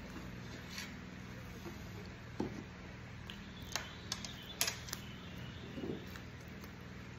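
Close mouth sounds of eating a kebab wrap: a bite and chewing, with a quick run of sharp clicks about four seconds in and a couple of soft thumps, over a steady low hum.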